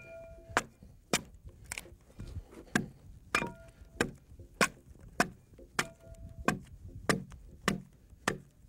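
Broad axe hewing a green log, striking in a steady rhythm of a little under two blows a second as it takes thin shavings off the face. Some blows leave a brief metallic ring from the axe head.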